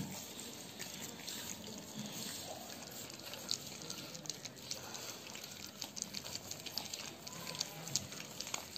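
Several puppies lapping and slurping soft, wet food from a metal plate: a steady run of small wet smacks and clicks.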